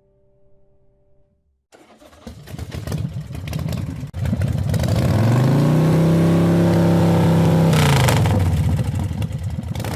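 Kawasaki Z900RS inline-four engine through an MRS Oficina exhaust, coming in about two seconds in and running with a crackly, uneven note, then revved up about halfway through, held at a steady high note for about three seconds, and let fall back near the end.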